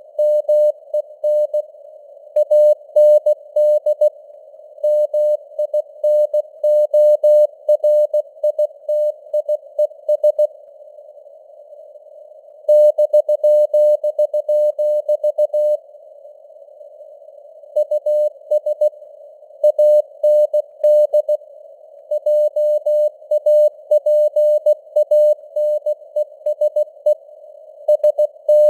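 Morse code sent at 16 words per minute: a single mid-pitched tone keyed on and off in dots and dashes over a narrow hiss of simulated radio noise, as a CW signal sounds on a receiver. The keying stops twice for about two seconds, once near the middle and once a little later, leaving only the hiss.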